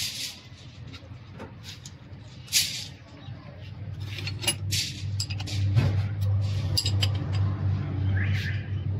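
Small metal parts of a Toyota 2L diesel injection pump clicking and clinking as it is handled and reassembled, with a short hiss about two and a half seconds in. A low steady hum builds up in the second half.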